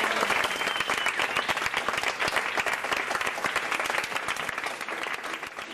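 Audience applauding: many hands clapping densely, the applause slowly thinning and growing quieter toward the end.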